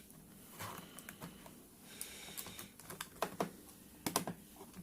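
Irregular light plastic clicks and taps of a Dell Latitude E5450 laptop's bottom case being fitted back onto the chassis, with sharper clicks about three seconds and about four seconds in.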